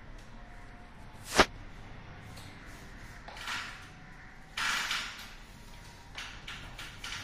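A sharp knock about a second and a half in. Then two short stretches of scraping, rubbing noise as a small paint roller is worked along a ceiling edge, and a few light clicks near the end.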